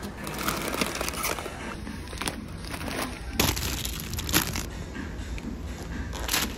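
Plastic or paper packaging crinkling and rustling as it is handled, in irregular crackly bursts, with two sharper crackles about halfway through.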